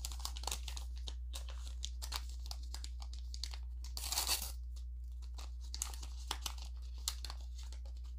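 Small plastic packaging crinkling and tearing as tiny collectible minis are handled and unwrapped, in short scattered crackles with a longer rustle about four seconds in.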